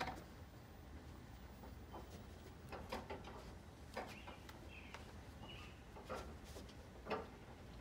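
Faint, scattered clicks and knocks, about five over several seconds, as a dirt bike is handled and strapped down in a pickup bed. The bike's engine is off.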